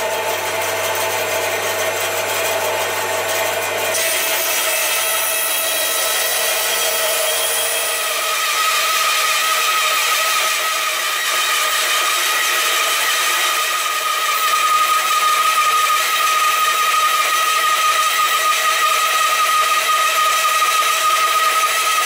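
Band saw resawing a thin veneer off the face of a wooden board, the blade cutting steadily through the wood at a slow feed. A steady whining tone stands out from about a third of the way through the cut.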